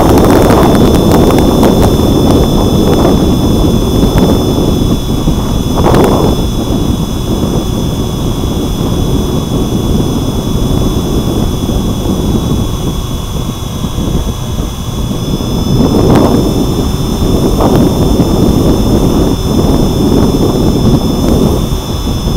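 Wind rushing and buffeting over the wing-mounted action camera's microphone as the E-flite Turbo Timber electric RC plane flies, with a steady high whine from its brushless motor and propeller under it. The wind swells in gusts about six seconds in and again about sixteen seconds in.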